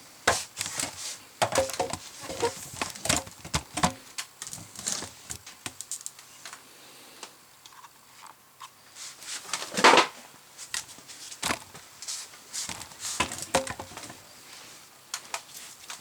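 Scattered clicks, knocks and scrapes of hands working on a metal electrical junction box, most likely taking its cover off. The loudest knock comes about ten seconds in.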